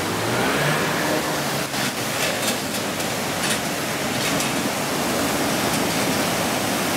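Muddy flash-flood water rushing across a road through a rocky wadi: a loud, steady roar of torrent.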